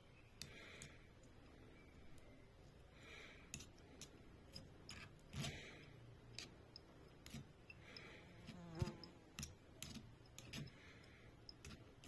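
Faint scattered clicks and light taps, with one louder knock about three-quarters of the way through, over a soft hiss that swells every two to three seconds.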